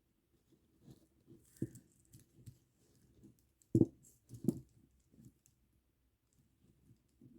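Plastic kandi beads clicking and rattling as a beaded bracelet is handled, with scattered light clicks and two sharper clacks a little past the middle.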